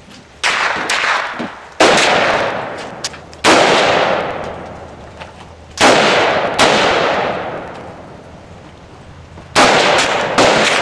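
Gunshots from firearms at a shooting range: about six single shots fired at uneven intervals, each sharp crack followed by a long fading echo.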